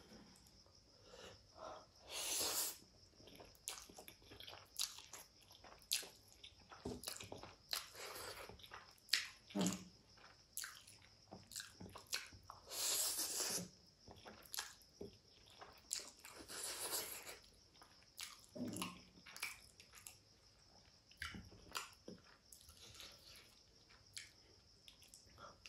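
Close-up eating sounds of spicy Korean instant ramen noodles: several long slurps, each about a second, with wet chewing and lip smacks in between.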